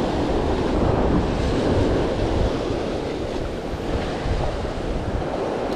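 Ocean surf washing and breaking over a rocky shoreline, with wind buffeting the microphone; a steady, even rush of noise.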